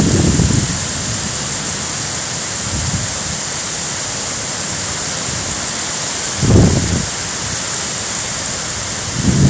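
Heavy downpour hissing steadily. Several short low rumbles of wind gusting on the microphone come through it, the strongest about two-thirds of the way in and another building right at the end.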